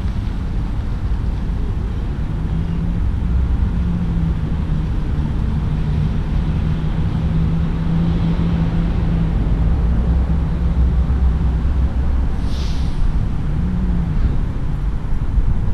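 Wind rumbling on the microphone outdoors, a steady low roar, with a steady low hum through most of it and a brief high hiss about three-quarters of the way through.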